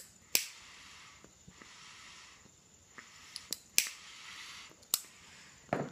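Tobacco pipe being relit: a run of soft hissy puffs as the pipe is drawn on, broken by several sharp clicks from the lighter.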